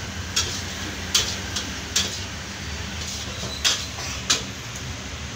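Street ambience with a steady low hum of traffic. Five short, sharp clicks come at irregular intervals.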